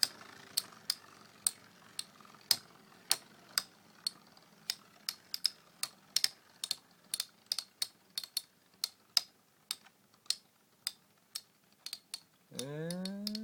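Two Metal Fight Beyblade tops, Earth Wolf 105WD and Fury Capricorn 100HF, spinning in a stadium and striking each other: a run of sharp, irregular clicks, a few a second, from their metal wheels colliding.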